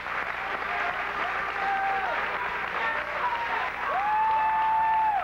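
Audience applauding and cheering, with long, held cheering calls over the clapping. The loudest comes about four seconds in.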